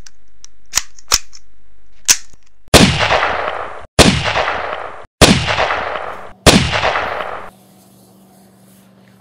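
Three sharp clicks, then four gunshots about 1.2 seconds apart, each ringing out and fading over about a second. The shots stop suddenly, leaving only a faint steady hum.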